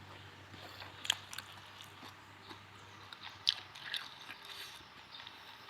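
Someone biting into and chewing crunchy food, with a few short sharp crunches.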